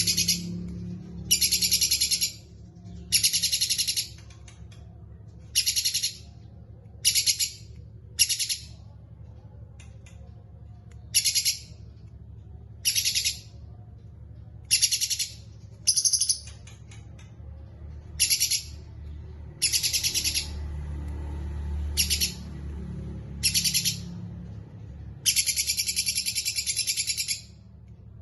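Songbird singing short, high, rapidly trilled phrases again and again at uneven gaps, with one longer trill of about two seconds near the end.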